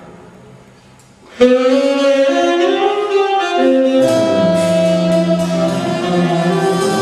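Improvised jazz trio: after a quiet, fading moment, a saxophone comes in suddenly with a loud held note about a second and a half in. From about four seconds, lower bowed notes from the electric bass violin and drum and cymbal strikes join in.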